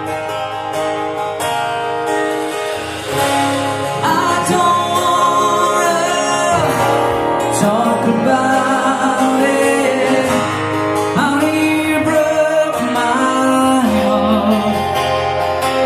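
A pop song played through Wharfedale Diamond 9.6 loudspeakers: picked acoustic guitar at first, then a singing voice comes in about four seconds in and the music gets louder.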